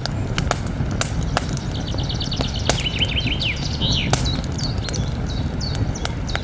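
Campfire crackling, with irregular sharp pops over a low steady rumble. A small bird sings a fast series of high chirps from about two seconds in, with a few more scattered chirps near the end.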